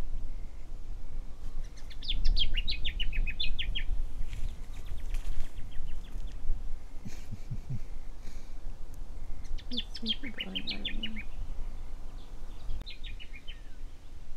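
A bird singing in three short phrases, each a quick run of repeated notes falling in pitch, under a steady low rumble.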